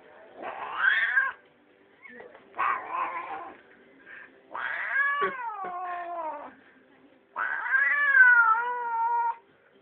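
Domestic cat yowling four times, drawn-out, puma-like calls, the last two about two seconds each, dropping and wavering in pitch. The cat is under the influence of catnip.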